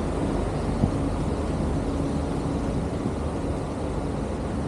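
Lake passenger ship under way: a steady engine drone with a constant low hum under a rushing noise of water and wind.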